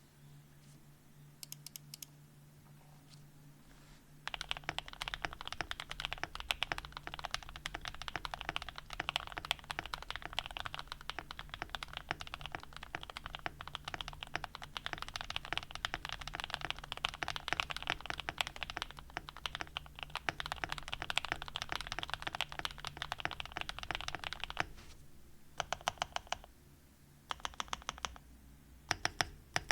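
Typing on a Mollecue Pochi40 mechanical keyboard with Creamsicles switches and Osume Sakura keycaps. A couple of faint key presses come about a second and a half in, then fast continuous typing from about four seconds in to about 25 seconds. After that come a few short runs of separate keystrokes.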